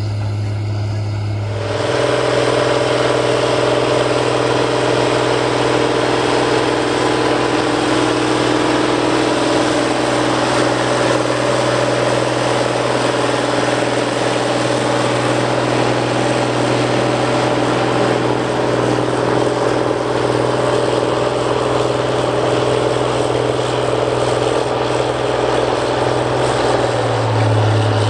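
International 4186 four-wheel-drive tractor's turbocharged IH DT-436 diesel running steadily under load while pulling a field cultivator. About two seconds in, the sound switches from another big diesel tractor pulling a disc harrow.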